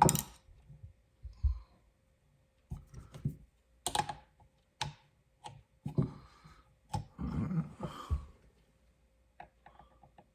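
Irregular clicks and knocks of metal parts being handled on a TS Prof Cadet guided knife sharpener while its height compensation is set and screwed tight.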